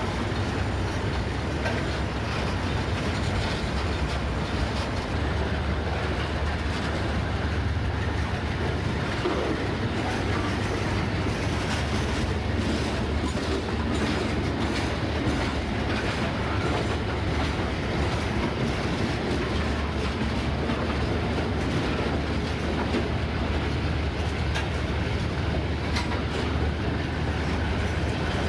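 Loaded Norfolk Southern iron ore train rolling past, a steady rumble of freight-car wheels with clickety-clack over the rail joints.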